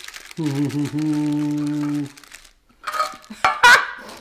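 A person's voice singing or humming a long held note, steady in pitch, for about a second and a half. Near the end come a few short, sharper vocal sounds with a quick rise in pitch.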